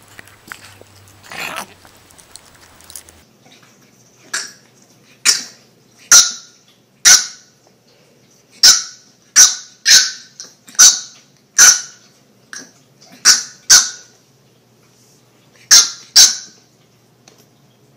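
French bulldog puppy yapping in short, sharp, high-pitched barks, about fifteen of them at uneven intervals, starting a few seconds in.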